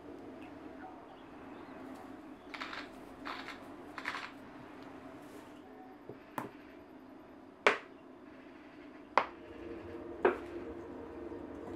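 A wooden spoon tossing spinach filling in a bowl: a few soft rustles, then four sharp knocks of the spoon against the bowl's side, the second the loudest. A low steady hum underneath.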